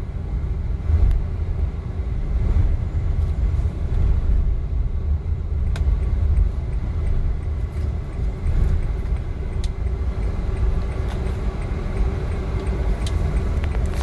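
Steady low rumble of a small car driving, heard from inside the cabin: engine and tyre noise, with a few faint clicks.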